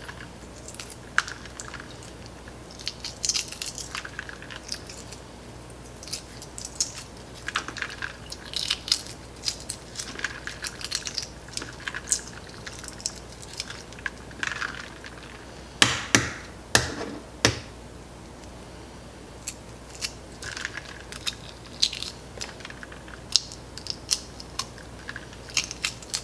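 Eggshells crackling and snapping as hard-boiled eggs are cracked and peeled by hand, in irregular small bursts. A few louder knocks come about two-thirds of the way through.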